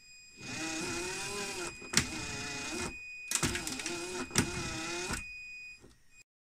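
Electric drive of an RC Mercedes dump truck spinning its wheels in the air in two bursts, whining with a wavering pitch and broken by a few sharp clicks as the drivetrain jumps and locks up. The clicks are the sign of a broken differential with stripped gear teeth.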